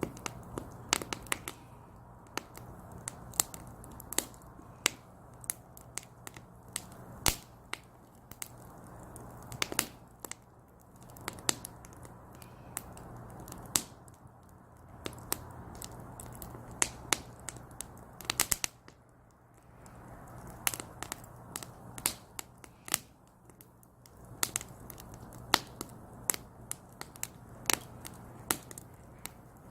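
Split firewood burning in a small brazier, crackling with irregular sharp pops and snaps, sometimes singly and sometimes in quick clusters, over a low hiss of the flames.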